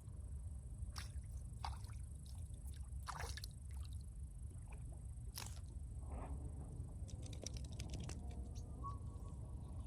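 Riverbank ambience: a steady low rumble under a steady high hiss, broken by scattered short clicks and swishes, one longer swish about three seconds in and a run of small clicks near the end, like water sloshing and gear being handled at the bank.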